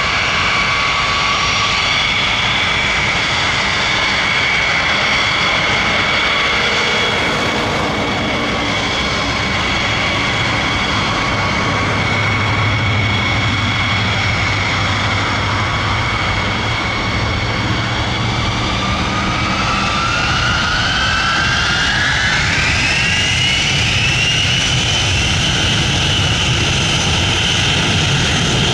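Boeing B-52H Stratofortress's eight TF33 turbofan engines running with a steady high whine over a rumble. About two-thirds of the way in, the whine rises in pitch over a few seconds and holds higher as the engines spool up to takeoff power for the takeoff roll.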